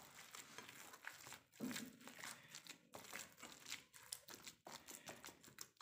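A hand squeezing and kneading raw chopped chicken with onion paste and spices on a plate. Faint, irregular wet rustling and crackling as the mixture works through the fingers.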